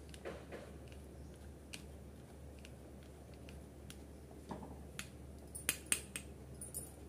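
Steel spoon scraping and clicking against the mesh of a plastic tea strainer as cardamom seeds are crushed through it, light scattered clicks with a louder cluster near the end.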